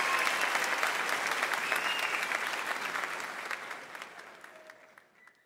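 Concert audience applauding, with a few brief held whistles, the applause fading out to silence near the end.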